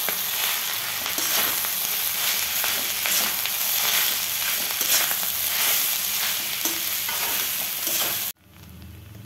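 Rice sizzling in a hot metal kadai while a spatula stirs and scrapes through it, working spice powders into the cooked rice, with many small scraping clicks over a steady hiss. The sizzle cuts off suddenly near the end.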